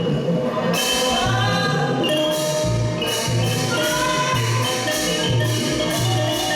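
Thai ensemble music: a mallet-struck xylophone-type melody over a steady, even drum beat, with bright metallic strokes recurring throughout.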